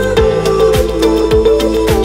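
Background music with a steady beat of about two low drum hits a second over held tones.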